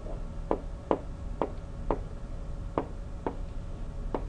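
Stylus tapping and clicking on a digital writing surface as digits are written, about seven sharp, irregularly spaced taps.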